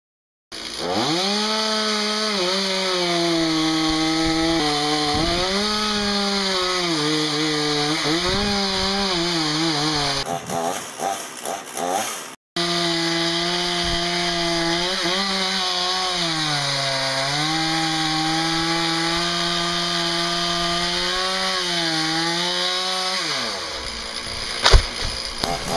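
Two-stroke chainsaw running at high revs while cutting spruce wood; its pitch sags and recovers again and again as the chain bites into the wood. The sound cuts off abruptly about halfway and starts again, dies away near the end, and a single sharp knock follows.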